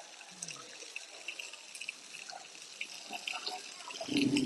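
Faint scattered light clicks and clinks, with a short, louder low thump about four seconds in.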